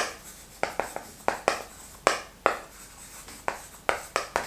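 Yellow chalk writing on a blackboard: about a dozen sharp, irregular taps and short scratching strokes as each character is written.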